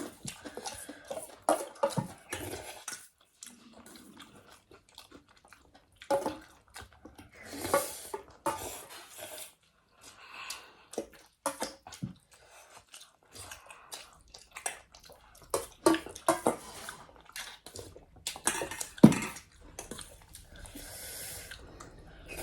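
Eating thukpa noodle soup close to the microphone: wet slurps of noodles and broth, with chewing and small clicks of utensils against the bowl in between.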